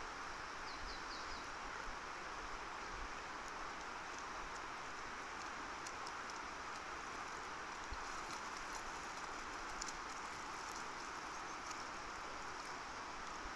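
Steady outdoor background noise, with a few faint high bird chirps about a second in.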